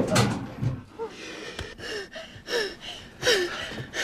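A girl's frightened gasping breaths, short and quick, several in a row, each with a small falling whimper. The tail of a louder noise dies away at the start.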